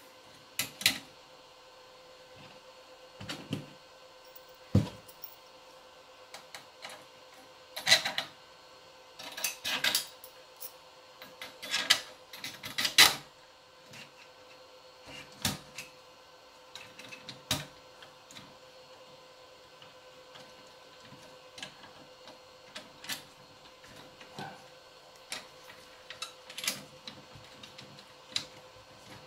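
Irregular clicks, taps and knocks of parts being handled as a fan is fitted back onto an Innosilicon A4+ miner's case, busiest in the middle, over a faint steady hum.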